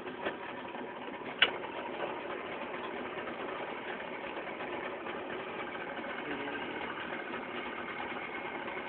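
Boat engine running steadily at idle, with a single sharp click about a second and a half in.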